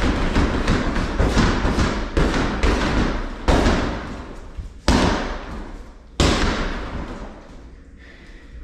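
Gloved punches thudding on a Century Wavemaster freestanding heavy bag, first a rapid string of hits, then three harder single strikes about a second and a half apart, each with a short echo.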